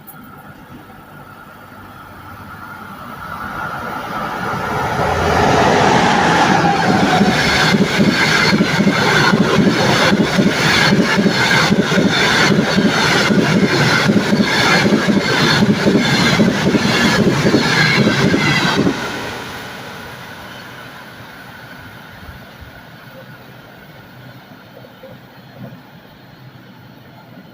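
EP2K electric locomotive and its passenger train passing close by. The sound builds as it approaches, then comes a long loud stretch of rhythmic wheel clacking over rail joints. This cuts off sharply as the last car goes by and fades away.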